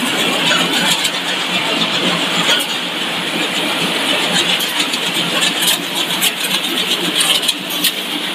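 Fried snack production line running, with its mesh conveyor belts and gear motors giving a steady, dense machinery noise.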